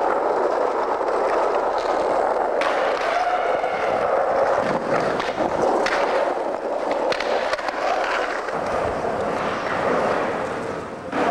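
Skateboard wheels rolling over rough concrete transitions, a steady grinding rumble.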